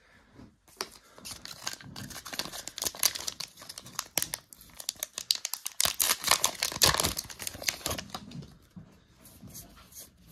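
Foil trading-card booster pack crinkling and being torn open by hand, a dense crackle that is loudest about six to seven seconds in.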